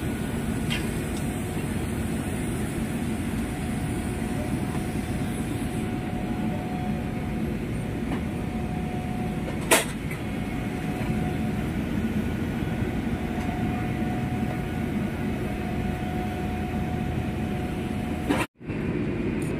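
Steady low rumble of work-site machinery, with a faint thin tone running through it. One sharp click comes about halfway through, and the sound cuts out briefly near the end.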